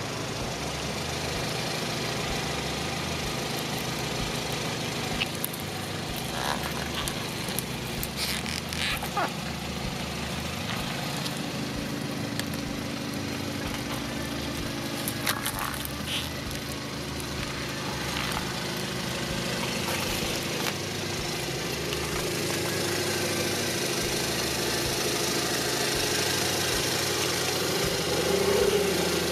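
Car engine running at low speed as a tyre rolls slowly over a row of toy fruits, with a few sharp clicks and cracks as they are squashed.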